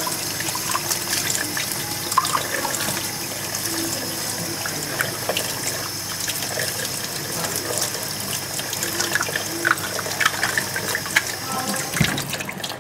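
Water running from a tap while a plastic coffee-machine dispensing part is rinsed under it, with light knocks of the part against the sink. The running water stops near the end.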